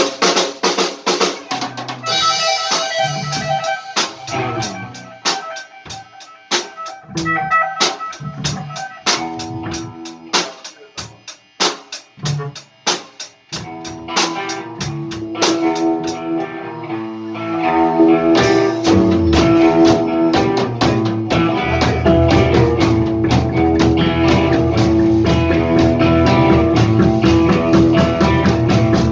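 A live rock band in a small room: electric guitars, bass guitar and drum kit. The playing is sparse and stop-start at first, then the full band comes in louder about two-thirds of the way through.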